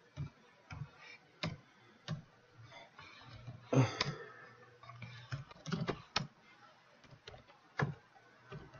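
Computer keyboard keys pressed at irregular intervals, a dozen or so separate clicks, the loudest a heavier knock about four seconds in, over a faint steady low hum.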